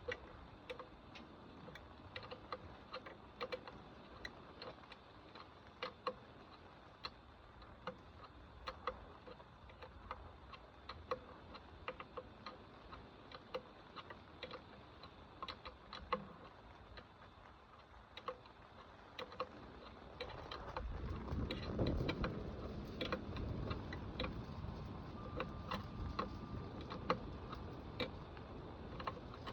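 Irregular light clicks and taps of hand tools and metal parts being handled, a few each second. About 20 seconds in, a louder low rumbling noise comes in underneath and continues.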